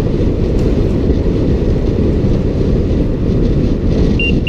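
Wind buffeting the microphone of a camera on a moving bicycle, a loud steady low rumble mixed with tyre noise on the concrete road. Two short high beeps come near the end.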